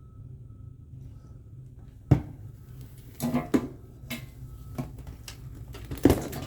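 Sharp metallic clicks and clunks from handling at a circuit breaker panel, with a loud clack about two seconds in, a quick cluster a second later and another loud clack near the end, over a steady low hum.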